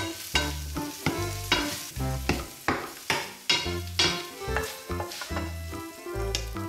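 Background music with a steady beat, bass notes and a melody, over the sizzle of chili shrimps frying and being stirred in a stainless steel frying pan.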